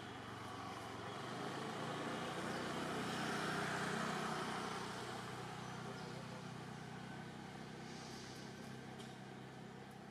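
A motor vehicle passing by, its noise swelling to a peak about four seconds in and then fading away.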